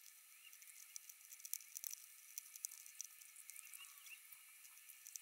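Faint, scattered clicks and light clatter of small plastic LEGO pieces being picked up, sorted and pressed together on a table.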